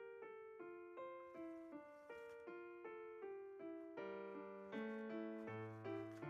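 Background piano music: a gentle melody of struck notes at about three a second, with lower bass notes coming in about four seconds in.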